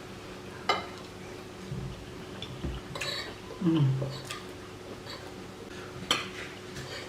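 Cutlery clinking and scraping against plates during a meal: a few sharp clinks with lighter taps between. About halfway through, a short hum from a voice falls in pitch, the loudest sound.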